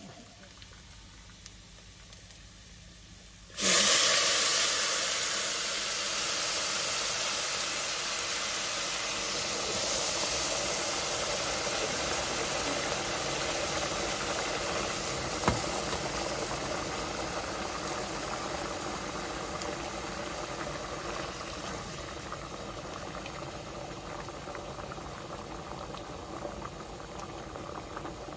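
Water poured into a hot pot of toasted rice: a sudden loud sizzling hiss about three and a half seconds in, then a steady hiss of the water boiling up around the rice as more is poured from a glass cup, slowly fading.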